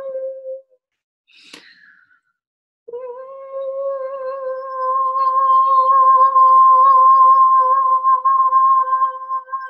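A woman's voice singing long sustained wordless notes on one pitch. A held note breaks off just after the start, and after a short gap another begins about three seconds in with a slight upward slide. That note is held steady with a light waver and swells louder in the middle.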